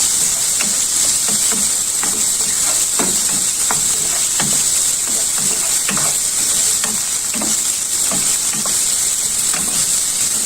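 Shrimp sizzling steadily as they fry in hot vegetable oil in a frying pan, with irregular clicks and scrapes as they are stirred.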